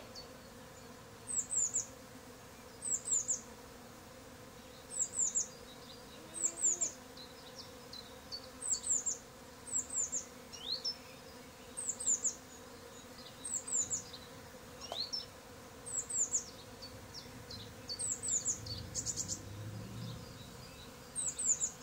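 Honeybees humming steadily around a hive entrance, with a small bird's short, high, down-slurred calls in twos and threes repeating every couple of seconds over it.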